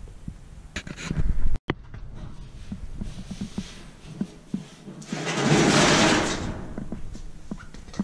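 Hands handling furnace gas-valve parts and fittings: scattered light clicks and knocks, a sharper knock about a second and a half in, and a longer rustling scrape from about five to seven seconds in.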